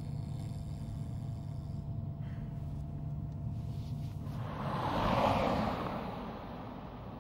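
Car driving, a steady low rumble of engine and road noise, with a rush of noise that swells and fades about five seconds in.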